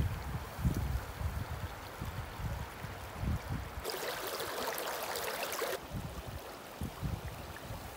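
Shallow river water running over rocks, with wind buffeting the microphone in low gusts. The rush of the water is loudest for about two seconds in the middle.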